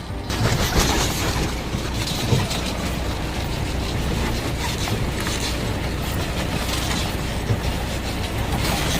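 Farm tractor running steadily while the wagon it pulls rattles and clatters along under its riders.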